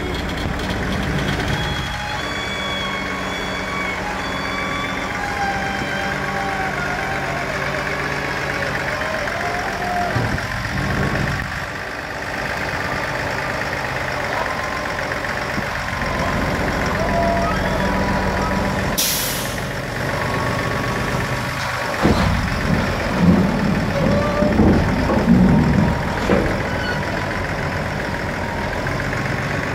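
Heavy machinery engine running steadily, its pitch wavering as a wheel loader lifts a scrapped pickup truck on its forks. A short hiss of air comes about two-thirds of the way through, followed by a run of irregular metal bangs and clunks as the pickup is set down into a scrap hauler's steel box.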